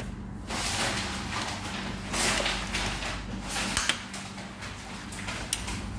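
Plastic parts of a Canon imageRUNNER ADVANCE C5235i copier's paper feed roller assembly being handled and pushed into place, with scraping and rattling and a sharp click about four seconds in and another near the end as the parts snap home.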